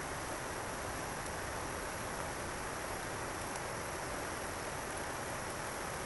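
Steady, even rushing hiss of running water, unbroken, with a few faint ticks.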